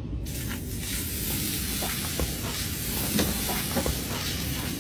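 Raw steak sizzling on a hot go-kart exhaust pipe: a dense hiss that starts abruptly just after the start, with scattered crackling pops.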